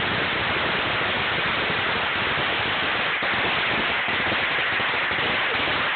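A very long string of firecrackers going off continuously. The bangs are so dense that they merge into one steady, unbroken crackle.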